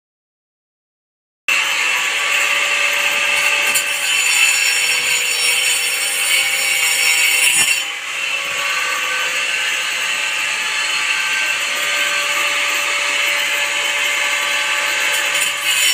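Corded electric drill running continuously as it bores into the wall, a steady motor whine over grinding noise that starts about a second and a half in.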